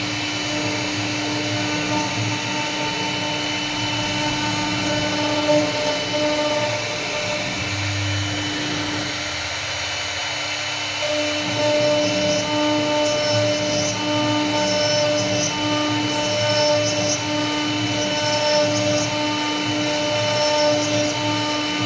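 CNC wood router spindle running with a steady whine while its bit carves wood, the cutting noise easing briefly about ten seconds in.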